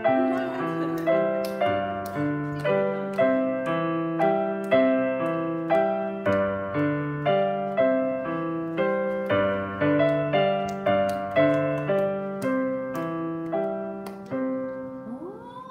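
Piano or electric keyboard playing a gentle melody over chords, with a steady pulse of about two notes a second, for the children to sway to. It gets quieter over the last couple of seconds.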